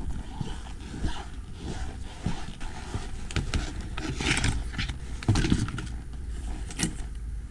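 Wind rumbling on a small action-camera microphone, with irregular scuffs and knocks as the camera and ski gear are handled; the loudest knock comes a little past five seconds in.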